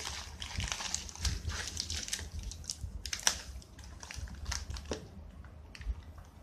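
Foil snack bag crinkling and plastic clicking as a plastic bag-sealing clip is slid over the bag's folded top, with one sharp click about three seconds in. The handling noise thins to a few faint clicks in the last second or so.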